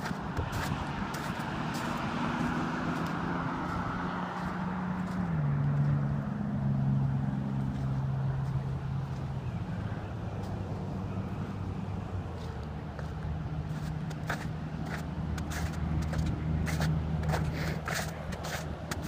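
A motor vehicle's engine running, its pitch shifting about five seconds in and then holding steady, with a few sharp clicks near the end.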